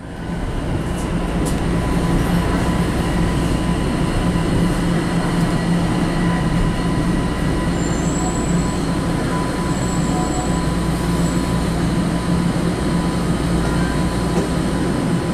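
Inside a TTC Toronto Rocket subway car under way in the tunnel: a steady running rumble with an even motor hum, and faint high-pitched wheel squeals about midway. The low rumble eases near the end as the train pulls into a station.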